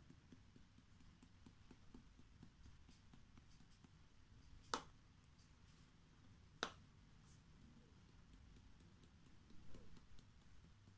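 Small glitter jars knocking against the hard tabletop or plate as they are picked up and set down: two sharp clicks a couple of seconds apart, then a few light taps near the end as glitter is shaken from a jar. Otherwise very quiet.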